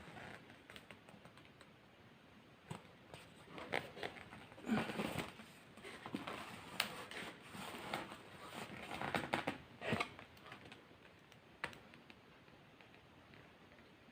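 Close-up eating sounds: irregular light clicks, taps and rustles of utensils and food containers being handled, busiest in the middle stretch.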